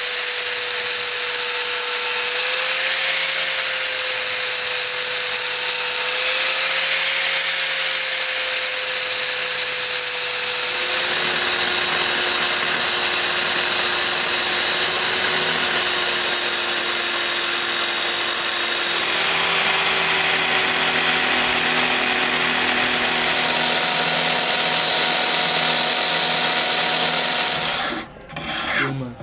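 Electric angle grinder with a sanding disc running steadily with a constant whine while shaping a wooden knife-handle scale. About eleven seconds in, the sound changes to a benchtop belt sander running as a wooden handle scale is sanded flat on the belt. Near the end the motor sound gives way to a few strokes of a hand file on the wood.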